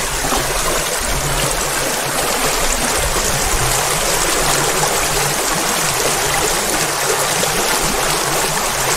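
Shallow creek spilling over a low rock ledge in a small cascade: a steady rush of running water.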